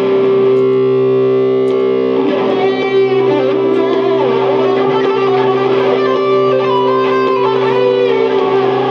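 Electric guitar through effects pedals, holding a steady droned C note. A lead line of moving notes is played over it from about two seconds in. The drone is a fixed reference note for practising scales and modes over.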